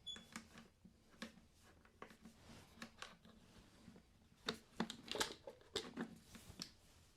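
Faint, scattered clicks and light knocks of hand work on a motorcycle's air filter cover and its bolts, with a busier run of them about four and a half seconds in.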